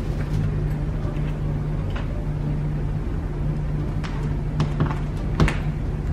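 A front door's knob and latch clicking and knocking softly several times as the knob is worked by hand, over a steady low hum.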